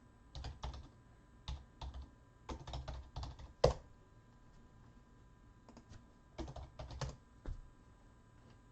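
Typing on a computer keyboard in short bursts of keystrokes with pauses between, and one sharper, louder click a little before the middle.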